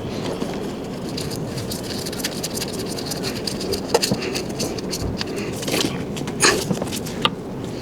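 Scattered clicks, taps and scrapes of hand work on an electric scooter wheel during a tire or inner-tube change, over a steady background noise.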